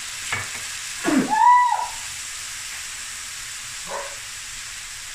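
Boneless chicken thighs sizzling steadily in a stainless steel pan, the water just added hissing off as steam. About a second in, a woman gives a loud sneeze, set off by black pepper.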